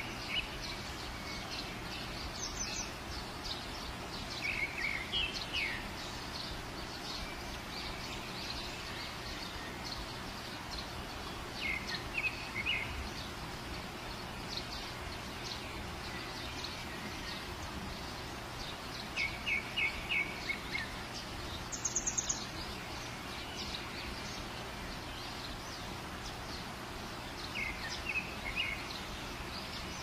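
Nature ambience: a steady rushing hiss of water with small birds chirping over it in short runs of quick notes every several seconds, one higher, sharper call a little past the middle.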